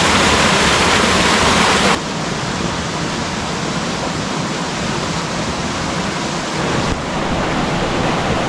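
Waterfall rushing, a steady loud wash of falling water. It drops suddenly in level about two seconds in and changes slightly again near seven seconds.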